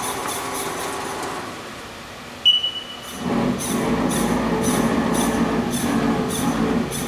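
Haas HRT 210B rotary table on a Haas TM-1 CNC mill being jogged: a faint servo whir, a sharp click with a brief high beep about two and a half seconds in, then the servo motor and drive running louder with a low rumble.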